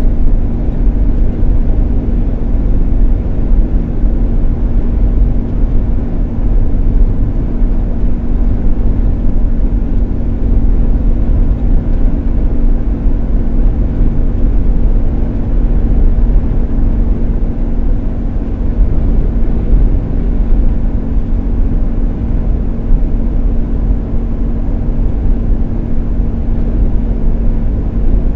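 Steady engine and road noise of a 16-foot moving van towing a car carrier at highway speed, heard inside the cab, with a constant low drone.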